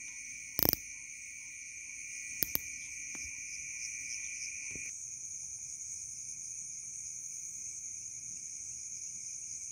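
Night insect chorus: a steady high-pitched trilling in two layers, the lower layer falling away about five seconds in. Two short, sharp knocks stand out in the first few seconds.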